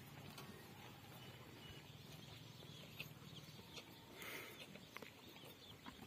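Faint farmyard ambience: scattered bird chirps with a few soft clicks and knocks.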